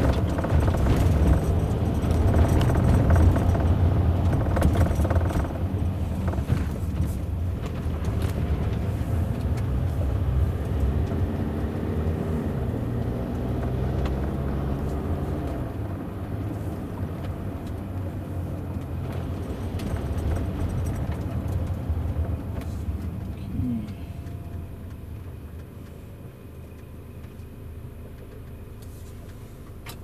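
Road and engine noise heard from inside the cabin of a Land Rover Discovery Sport driving on a wet road, with a few faint knocks. The rumble fades steadily as the car slows toward a stop.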